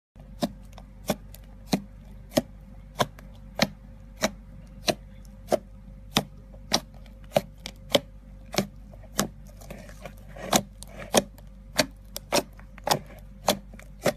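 Fingers poking into white fluffy slime, each poke giving a sharp crisp pop, about one and a half a second in an even rhythm, with some softer squishing around ten seconds in. A faint steady hum lies underneath.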